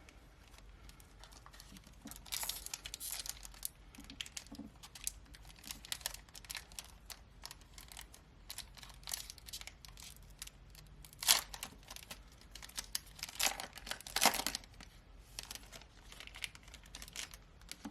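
Foil booster packs of One Piece trading cards being torn open and crinkled by hand, a long run of irregular crackles with a few louder rips.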